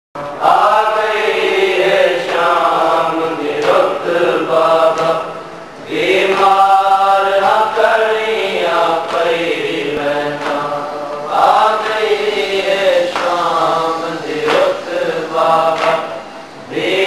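A man's voice chanting a mournful lament, a noha, into a microphone, in long wavering sung phrases with short breaks between them.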